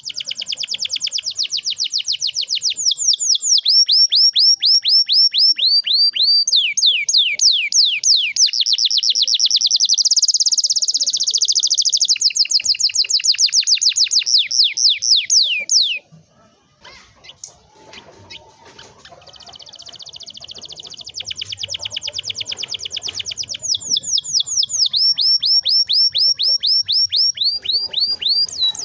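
Domestic canary singing long rolling trills, fast runs of repeated sweeping notes, the bird in full song. About halfway through the song breaks off, a few faint clicks follow, and then the trilling picks up again.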